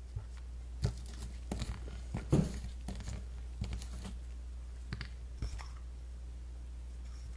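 Scattered rustles and light knocks of things being handled, about eight in all, loudest about two and a half seconds in and ending after about five and a half seconds, over a steady low hum.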